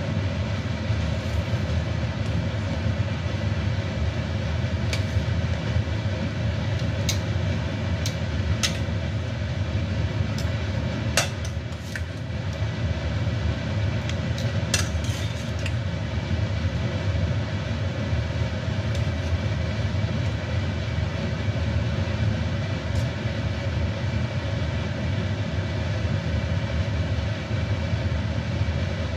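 Water at a rolling boil in a wok on a gas burner, a steady bubbling rumble. Between about five and sixteen seconds in come sharp clicks of tongs against the wok as pork spareribs are dropped in to blanch.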